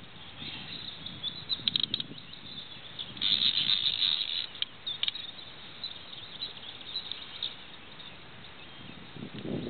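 Birds chirping, with a dense high buzzing trill for about a second and a half a little past three seconds in and a few brief clicks just before it.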